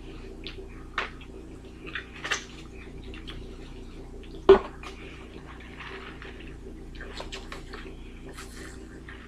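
Eating sounds: scattered clicks and taps of a plastic fork picking at fries in a paper tray, with wrapper handling and chewing, over a steady low hum. A sharp click about four and a half seconds in is the loudest, and a short sip through a straw comes near the end.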